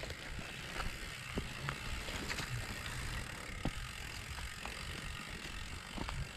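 Mountain bike riding over a rough dirt trail: the freewheel ticks while coasting, and the chain and frame rattle with sharp irregular clicks and knocks over bumps, above a steady low rumble.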